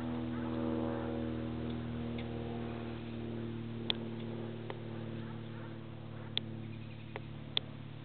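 A small bird pecking at its reflection in a mirror: about five sharp, irregularly spaced taps in the second half, over a steady low hum of several held pitches that slowly fades.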